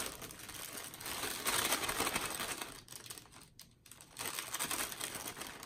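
Clear plastic cake-mix bag crinkling as it is shaken and squeezed to empty the dry mix into a plastic bowl, in two spells with a brief pause a little past the middle.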